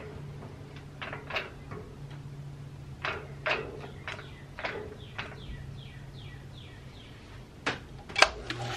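Small metal lathe running with a steady low hum while its cutting tool turns down a steel drill-bit shank, with a scattering of sharp clicks and scrapes as the tool cuts.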